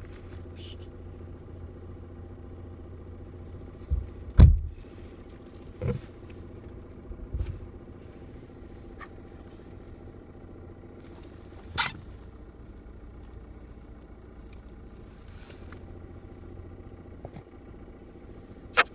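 Seat Leon 1.8 TSI's turbocharged four-cylinder petrol engine idling steadily, heard inside the cabin, with a series of separate knocks and clunks, the loudest about four and a half seconds in. The owner puts these noises down to the gearbox.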